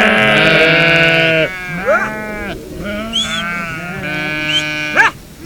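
A flock of sheep bleating, several long, overlapping calls one after another, with higher rising cries in between.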